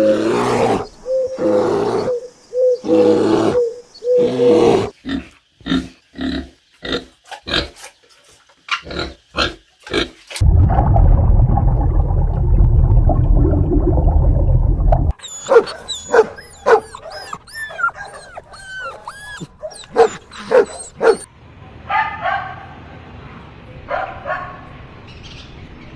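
Puppies yelping, whimpering and barking in a string of separate short calls, broken about ten seconds in by a loud low rumble lasting about five seconds, then a run of high squeaky cries.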